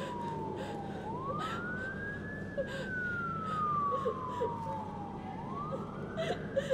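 An emergency vehicle siren wailing. Its pitch rises quickly, then falls slowly, repeating about every four seconds.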